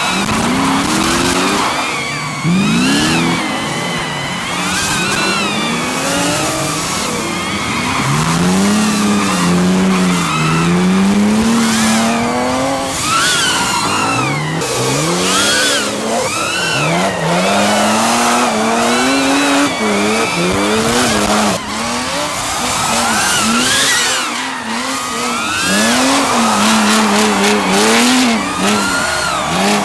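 Drift cars' engines revving up and down again and again as they slide, with tyre squeal over them.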